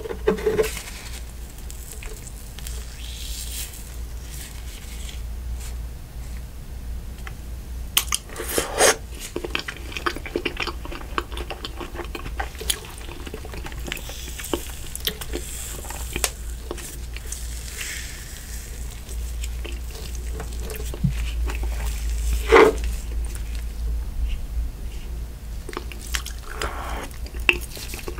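Close-miked eating of frozen creme brulee cookie ice cream: a metal spoon digging into the pint, then wet bites, chewing and lip smacks, with crunchy clicks throughout and a couple of louder bites. A constant low hum runs underneath.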